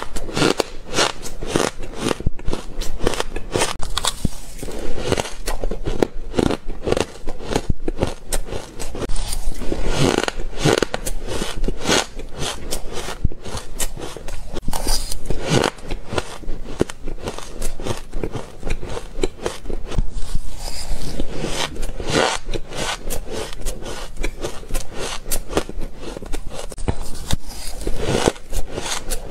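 Close-miked crunching and chewing of mouthfuls of shaved ice, mixed with a metal spoon scraping through shaved ice in a metal bowl: a dense run of crackly crunches.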